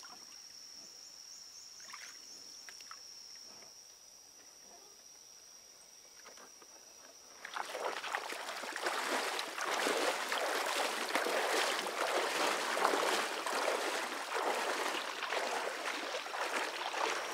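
A steady high-pitched insect drone with a few faint knocks. About halfway through it gives way to louder, irregular splashing of someone wading through shallow river water, which is the loudest part.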